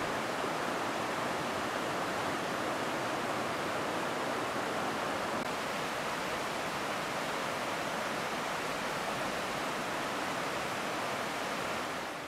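Muddy floodwater rushing down a swollen river channel, a steady, unbroken rushing noise that fades out at the very end.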